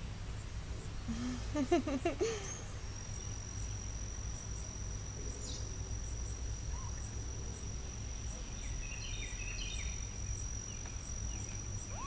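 Steady high-pitched insect trill, like crickets, over a low outdoor rumble. A short wavering animal call sounds about two seconds in, and faint chirps come near the nine-second mark.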